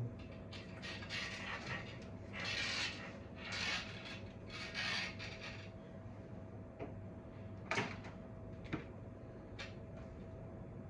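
Handling noise as cables and objects are rummaged through, rubbing and scraping in several spells over the first half, then a few sharp clicks later on. A faint steady hum runs underneath.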